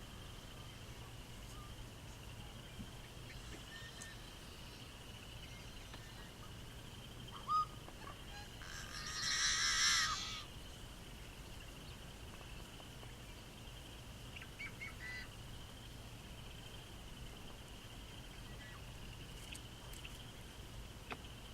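Yellow-headed blackbird singing: a short clear note, then a long harsh, rasping buzz lasting under two seconds, with a few faint high notes later. A faint steady high-pitched background chorus runs throughout.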